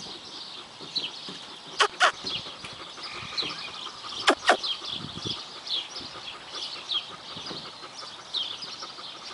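Small birds chirping: short, high, falling chirps repeating about every half second to a second. Two pairs of sharp clicks, about two and four and a half seconds in, are the loudest sounds.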